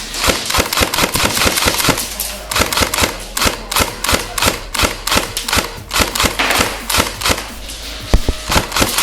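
Airsoft guns firing rapid bursts of BB shots: tightly packed sharp clicks, in clusters, with a few louder cracks about eight seconds in.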